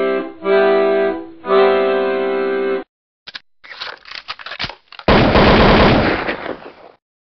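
Intro music and sound effect: three held synthesizer chords, then a crackle of sharp clicks, and about five seconds in a loud burst of noise that fades away over about two seconds.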